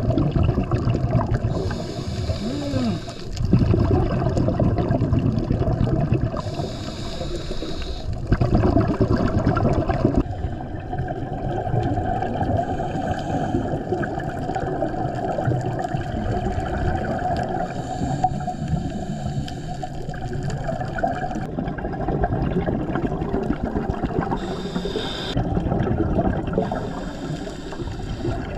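Muffled rushing and gurgling of water as heard by an underwater camera, with bursts of bubbly hiss several times.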